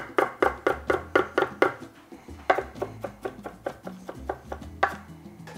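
Chef's knife finely dicing a white onion on a wooden end-grain cutting board: quick, even knocks of the blade on the board, about five a second. The strikes pause about a second and a half in, come back slower, and end with a single knock near the end.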